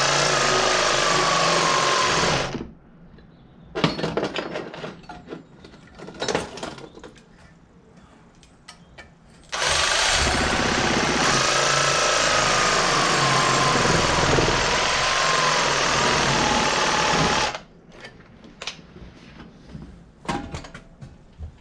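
Cordless reciprocating saw cutting into a tractor pedal bush with a blade that is not the sharpest. It runs twice, a short run that stops about two and a half seconds in and a longer one from about ten to seventeen and a half seconds, with a steady motor whine. Between and after the runs come scattered metallic clinks and knocks.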